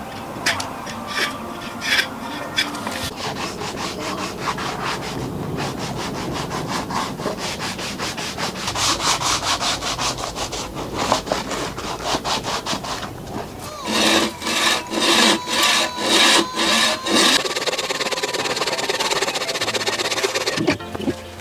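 A hand tool worked back and forth on wood in a long run of rubbing strokes, with a stretch of louder, evenly spaced strokes about two-thirds of the way in.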